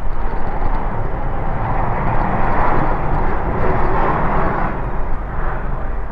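Steady rushing noise of moving air and street ambience picked up by a bicycle-mounted GoPro, with a constant low rumble. It swells louder about two seconds in and eases off again a little before five seconds.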